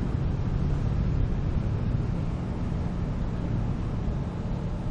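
Motorcycle running steadily at riding speed: a low engine rumble under a rush of wind noise on the helmet microphone.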